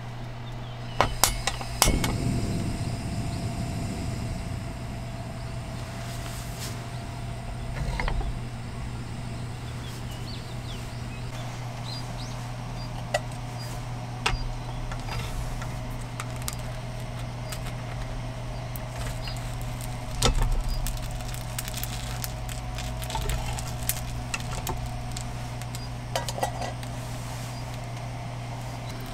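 Metal clinks and knocks of a hot sandwich maker being handled and set on a portable stove, over a steady low hum, with a few softer knocks later on.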